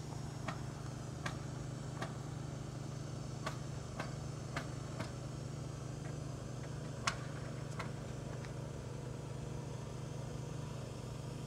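An engine running steadily at an even hum. About ten short, sharp clicks or taps are scattered over it, the loudest about seven seconds in.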